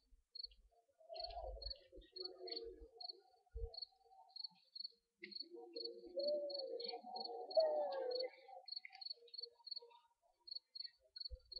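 Cricket chirping in a steady, even series of short high chirps, about two or three a second, with a faint voice murmuring underneath and a few low thumps.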